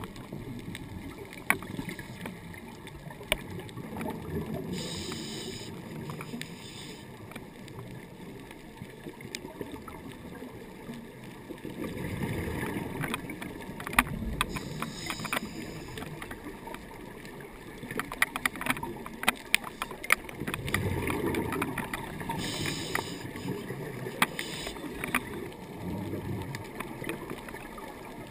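Scuba diver's regulator breathing heard underwater through a camera housing: short hissing inhalations and low rumbling bursts of exhaled bubbles every several seconds, over many scattered sharp clicks and crackles.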